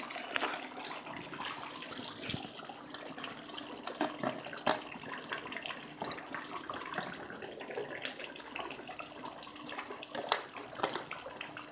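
Beef karahi gravy simmering in oil in a steel karahi over a gas flame: a steady bubbling hiss broken by irregular small pops and spits, with the meat nearly cooked.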